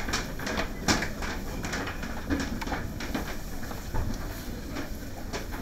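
Footsteps of several people walking on a hard floor: irregular clacking steps over a steady low background noise.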